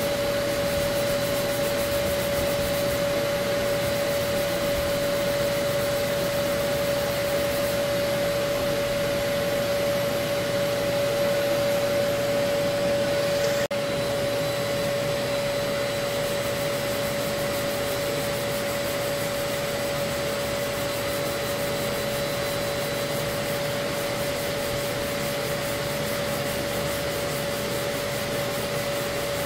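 Shop dust-extraction vacuum running with a steady hum, under the rubbing of a hand sanding block on body filler.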